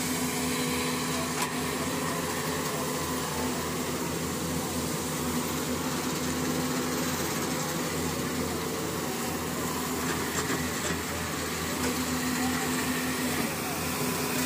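Diesel engines of Doosan Daewoo 140W wheeled excavators running steadily as the machines dig sand, an even drone with a low hum.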